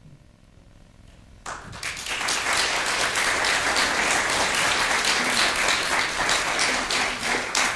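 Applause from many hands, starting suddenly about a second and a half in and continuing steadily.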